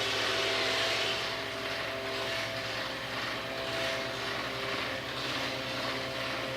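CNC styrofoam cutting machine running: a steady machine noise with a hiss and several steady whining tones.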